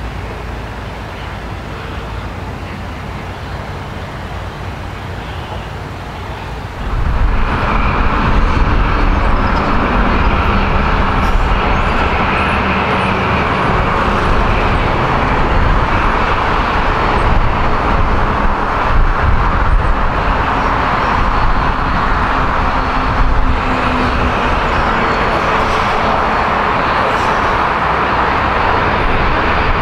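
Aircraft engine noise at an airport. It is steady, then jumps abruptly to a much louder level about seven seconds in and holds there, with a steady whine over the noise.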